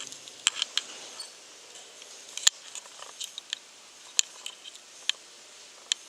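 About a dozen light, sharp clicks at irregular intervals over a faint hiss, the loudest about two and a half seconds in.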